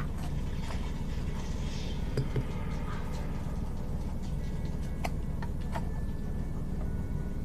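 Faint scratching and a few small clicks of a fingernail picking at a paper label stuck on a hard drive's metal cover, over a steady low background hum.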